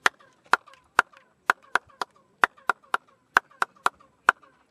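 Repeated sharp hand claps, about two or three a second at uneven spacing, each answered by a short falling chirp echo off the limestone steps of a Maya stepped pyramid. This is the bird-like chirp that clapping in front of the staircase is known for.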